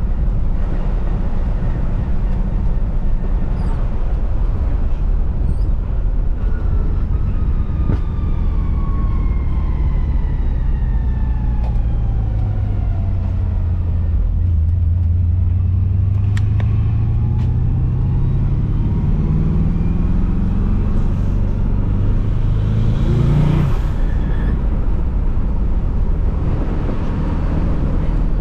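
2005 Pontiac GTO's V8 engine and road noise, heard from inside the cabin while driving. About halfway through, the engine note climbs steadily under acceleration, then drops sharply near the end as the manual gearbox is shifted up.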